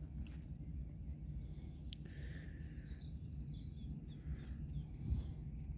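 Faint outdoor ambience: a steady low rumble with a few faint bird chirps scattered through it.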